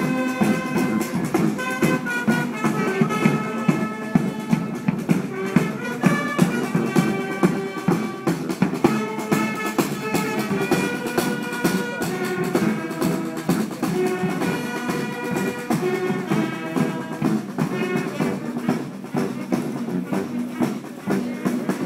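Marching band of brass instruments and drums playing a tune, with sustained brass notes over a steady drumbeat.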